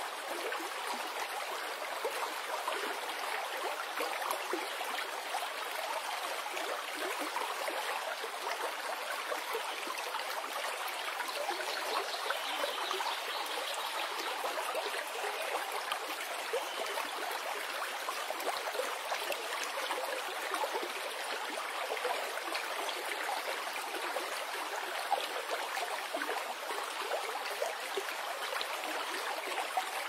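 Forest stream flowing: a steady, light rush of running water that does not change.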